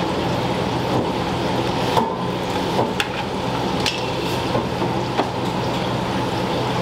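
Steady hum and hiss of a commercial kitchen during deep-frying of karaage, with several sharp metal clinks and knocks from about two to five seconds in.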